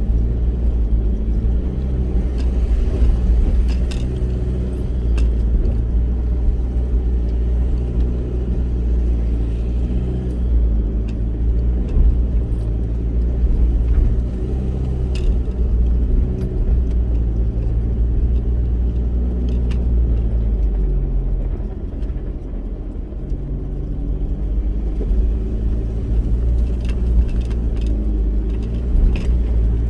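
Four-wheel-drive vehicle's engine running while driving an off-road track, its pitch rising and falling with the throttle, a dip a little past the middle, with occasional rattles and knocks over the rumble.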